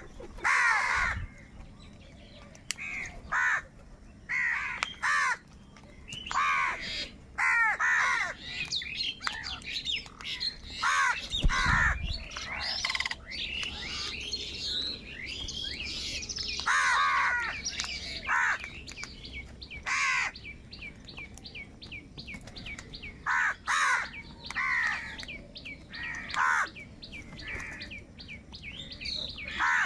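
A flock of house crows cawing over and over, their harsh calls overlapping as they squabble over food. A faster, higher chirping runs through the middle stretch, and there is one brief low thump about a third of the way in.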